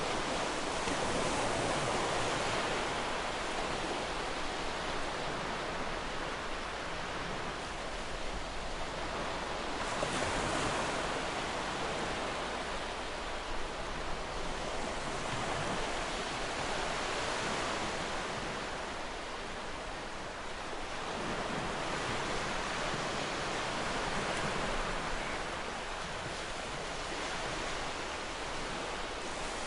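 Ocean waves washing onto a shore, an unbroken rush of surf that swells and eases every several seconds.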